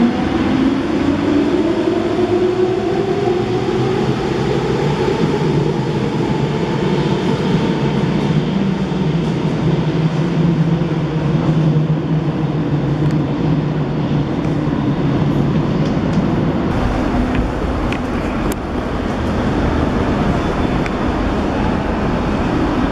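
Athens Metro electric train pulling out of the station: its traction motors whine up in pitch as it accelerates over the first few seconds, then give way to a steady hum and rumble.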